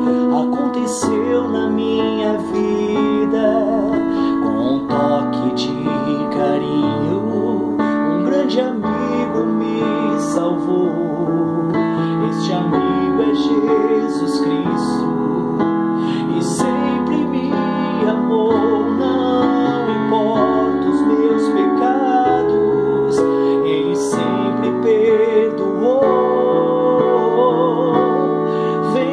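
Digital piano played with both hands: a slow passage of sustained chords changing every second or two, with a melody over them.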